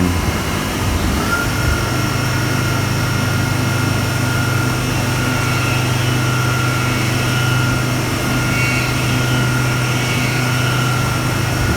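CNC milling machine cutting a bore with an end mill: the spindle runs steadily with a low hum, and a steady high cutting whine comes in about a second in.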